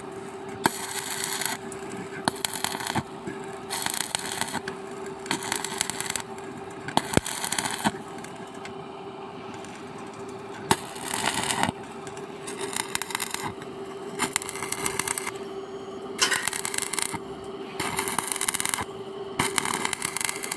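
Arc welding crackling in short bursts of about a second each, struck again and again with brief gaps between, over a steady hum.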